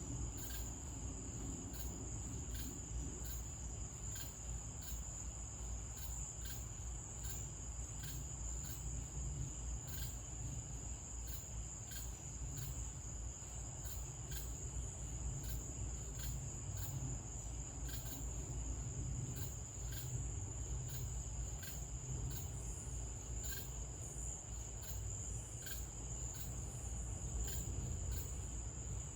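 Night insects, crickets, calling in chorus: a steady high trill with sharp ticks about twice a second, over a low steady rumble.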